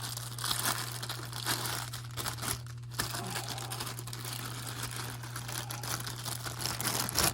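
Plastic packaging and bubble wrap crinkling and rustling as it is handled and unwrapped, in quick irregular crackles, over a steady low electrical hum.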